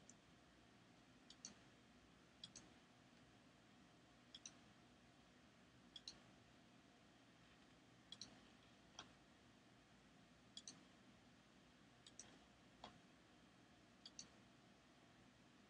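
Faint computer mouse clicks, mostly in close pairs, repeating every second or two over a low steady background noise.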